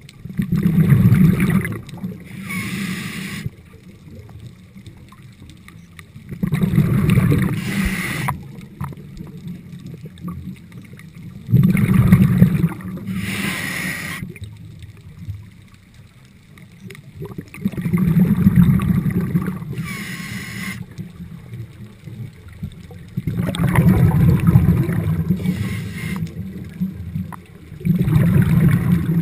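Scuba diver breathing through a regulator underwater: a loud rush of exhaled bubbles, then a short hiss from the regulator, repeating about every five to six seconds, six breaths in all.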